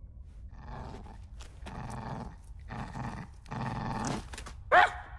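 Small dog snuffling at the ground in four short bursts, then giving one short high yip near the end, the loudest sound.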